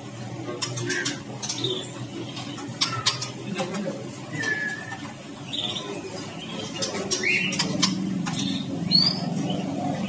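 Scattered short chirps and calls of caged songbirds, one falling in pitch about halfway through and one rising later, with sharp clicks among them and a low murmur of voices underneath.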